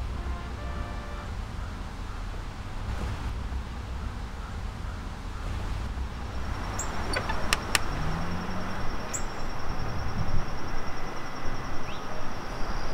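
Low steady rumble of a car, engine and road noise. About halfway through, a steady high whine comes in with a few sharp clicks, and the background grows louder.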